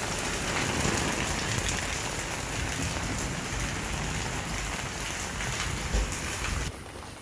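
Heavy rain falling steadily, an even dense hiss and patter. About six seconds in there is a single thump, and just after it the rain abruptly turns quieter and duller.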